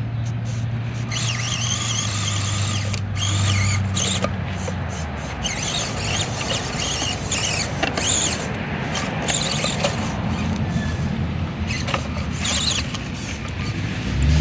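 Axial SCX24 Deadbolt micro crawler's electric motor and gears whining in short throttle bursts, the high-pitched whine rising and falling as it climbs.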